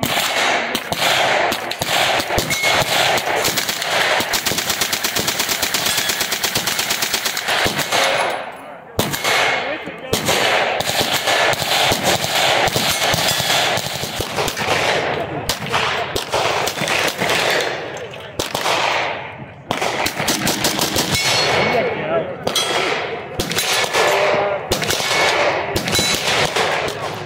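Fully automatic gunfire from several guns: rapid bursts with hardly a pause, including a long unbroken burst about four to eight seconds in and brief lulls near nine and nineteen seconds.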